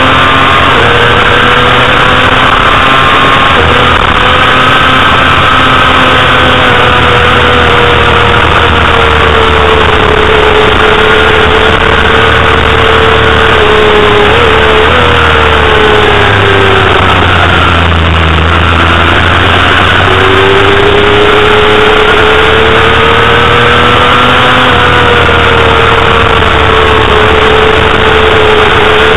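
Honda CBR250RR's 250 cc inline-four engine running at high revs under race throttle, over a steady rush of noise. The engine pitch holds high, falls away about halfway through, then climbs back up.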